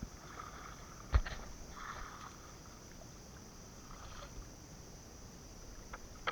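Water sloshing and small splashes, with one sharp knock about a second in and a few light clicks near the end.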